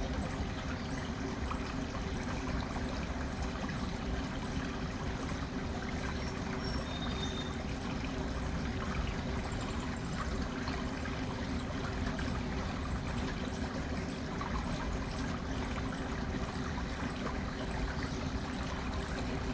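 Shallow creek flowing and trickling over stones, a steady, even sound of running water.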